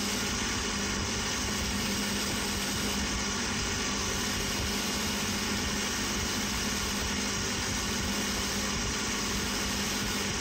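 Bench grinder running steadily, a steady hum with a tone around 200 Hz under an even whirr, as a small knurled metal ring is worked against its spinning wheel.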